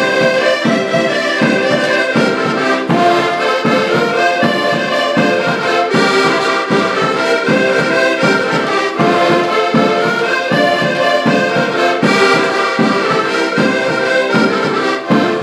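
A group of accordions playing a tune together, the melody over a steady pulsing bass-and-chord beat.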